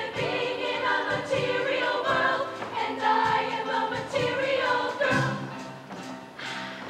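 A high school show choir singing, many voices together, with a brief drop in loudness about six seconds in.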